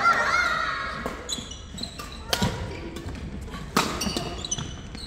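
Badminton rally: a few sharp cracks of rackets hitting the shuttlecock, the loudest about two and a half and four seconds in, with thuds of footsteps on the wooden court.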